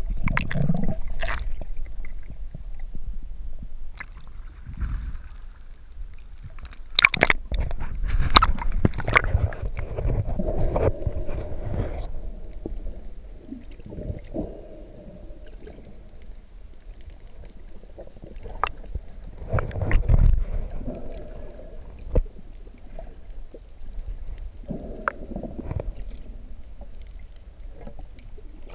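Underwater sound through a camera housing just below the surface: water sloshing and gurgling, with sharp clicks and knocks, loudest in a cluster about seven to twelve seconds in and again about twenty seconds in.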